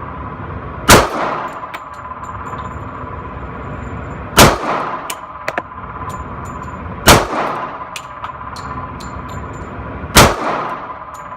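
Four single shots from a .45 semi-automatic pistol, fired slowly about three seconds apart. Each shot is followed by a short ring of echo.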